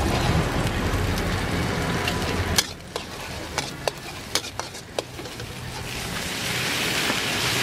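Egg frying and sizzling in hot oil in a steel wok, with a metal ladle tapping and scraping against the wok in a string of sharp clicks from about three seconds in. A low rumble under the sizzle drops away about three seconds in, and the sizzle swells again near the end as rice and vegetables go into the wok.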